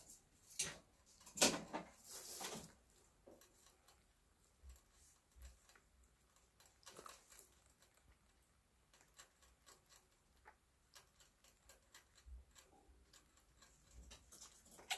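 A baby rabbit drinking from a hanging cage water bottle: faint, irregular clicking as it licks at the metal spout. A few louder rustles and knocks come in the first three seconds.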